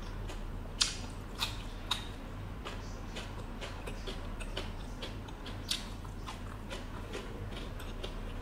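Close-up eating sounds: a person biting and chewing crisp stir-fried kohlrabi strips, three sharp crunches within the first two seconds, then a run of softer crunches with another sharp one about two-thirds of the way through.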